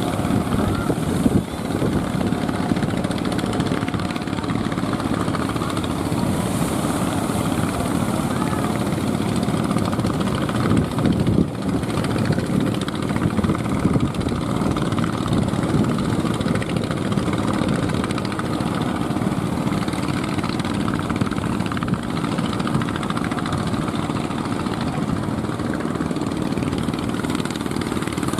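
Steady roar of heavy surf, big waves breaking along the beach.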